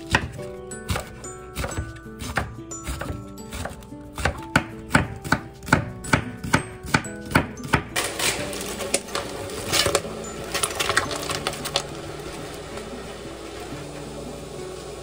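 Chef's knife chopping green onions and chili peppers on a wooden cutting board, about two to three strikes a second, loudest from about four to eight seconds in. It then turns to quicker, scrapier cuts through an onion and stops about three seconds before the end, leaving background music alone.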